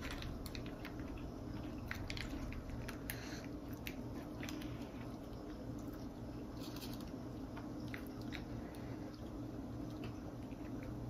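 Close-miked eating: chewing fried catfish and sauce-covered fries, with wet mouth sounds and scattered small clicks of forks and wrappers, over a low steady hum.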